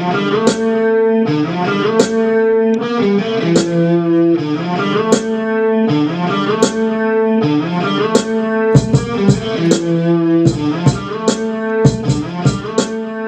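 Instrumental hip-hop beat built on a looped guitar phrase that repeats about every second and a half, with crisp percussion; heavy low drums come in about nine seconds in.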